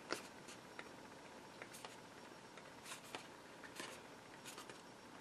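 Faint, scattered ticks and crackles of a thin plastic sheet being flexed by hand along a scored circular cut line.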